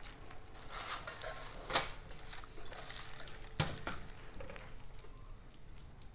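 Popcorn kernels being stirred into melted butter and butterscotch candy in a cooking pot: scraping with a few sharp knocks of a utensil against the pot, the loudest just under two seconds in and another about three and a half seconds in.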